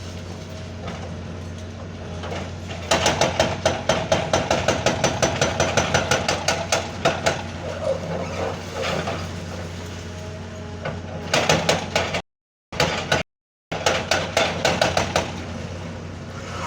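Backhoe engine running steadily, then about three seconds in a rapid series of sharp metallic knocks and clatter, about four a second, as the machine works on the building; the knocks stop around ten seconds and start again near the end. The sound cuts out completely twice for a moment.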